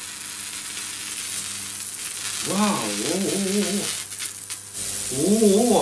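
High-voltage corona discharge from the thin emitter wire of a home-built ion lifter running at about 100,000 volts: a steady hiss with a low hum underneath as the lifter hovers.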